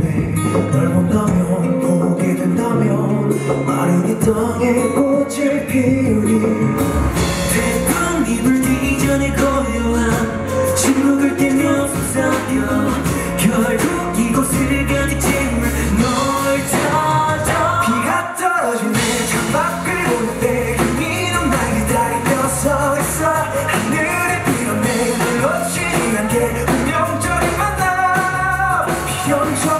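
Pop-rock song played by a band with a male lead singer: singing over keyboard at first, then bass and drums come in about seven seconds in, with a brief drop-out of the low end around the middle.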